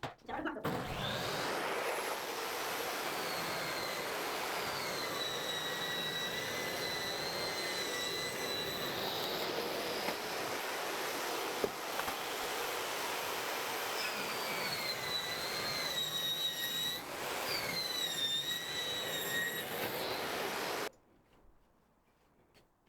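Electric power saw ripping a long cabinet door panel from sheet board: the motor's whine sags and recovers in pitch as the blade bites the wood, running for about twenty seconds before it stops abruptly.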